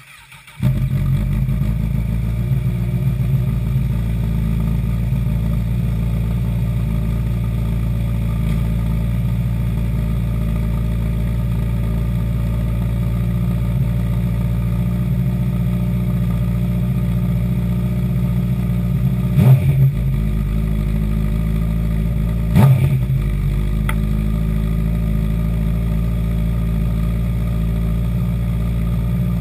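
A 2008 Honda CBR1000RR's inline-four engine starts about half a second in and idles steadily, with two short throttle blips about three seconds apart past the middle. This is the engine run at the end of an oil change.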